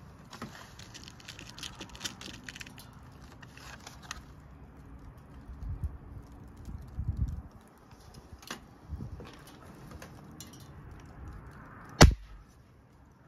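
Clicks and knocks of the rifle being handled and readied, then one sharp shot about twelve seconds in from a .177 break-barrel spring-piston air rifle, its transfer port bored out.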